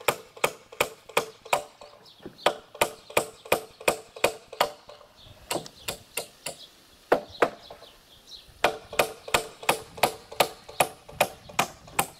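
Hammer driving a nail through a wooden brace into a wooden post, steady blows at about two or three a second. About halfway the rhythm breaks for a few seconds with only a few scattered blows, then the steady hammering resumes.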